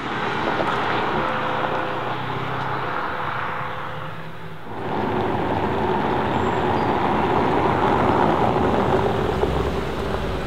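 Mercedes-AMG GT R's V8 fading as the car drives off. Then a Mercedes-AMG SL63's 4.0-litre twin-turbo V8 runs steadily at low revs as the car rolls over cobblestones toward the microphone and passes close, its low sound growing near the end.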